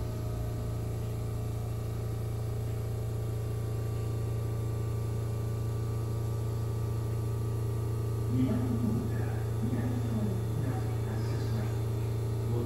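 Steady low hum inside a Sapporo Tozai Line subway car standing at a station, with indistinct voices from about eight seconds in.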